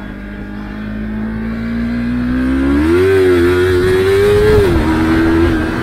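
Yamaha MT-25's 249 cc parallel-twin engine pulling hard under acceleration. The revs climb, rise sharply about three seconds in, then drop near the end as it shifts up, with wind rush building as speed picks up.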